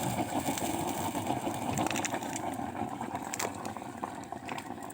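Thermit charge of a rail aluminothermic weld reacting in its crucible and pouring molten steel into the joint mould: a steady rushing roar with sharp crackles that eases off near the end.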